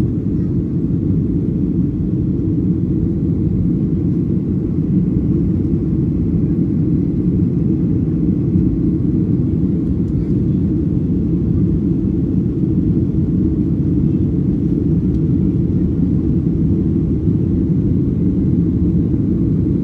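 Aircraft cabin noise in flight: a steady, unchanging low rumble of engines and airflow heard from inside the plane.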